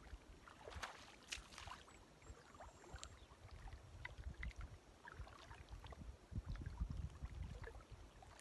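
Faint sloshing and small splashes of water around legs wading waist-deep in a lake, with a low rumble underneath.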